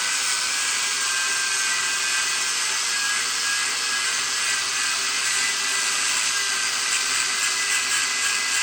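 High-speed power tool running steadily without a break: a high whine over a constant hiss.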